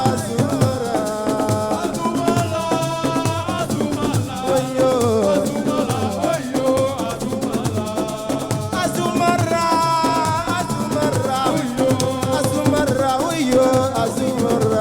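Assiko band music: steady percussion and shaker rattles under a pitched melody line.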